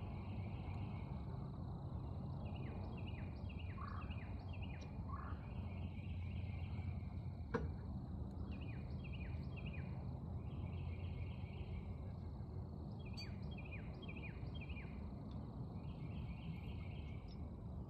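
A songbird singing the same phrase over and over: a run of short downward-slurred notes ending in a trill, every few seconds. Under it runs a steady low rumble of wind and background noise, and a single sharp click sounds partway through.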